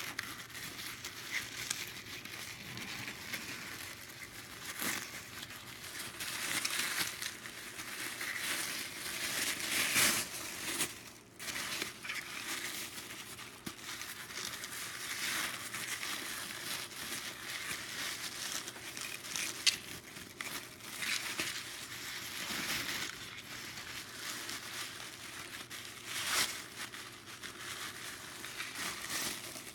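Packaging wrap being crumpled and torn by hand to unwrap a small item: continuous irregular crinkling and rustling, with louder bursts of crackle here and there.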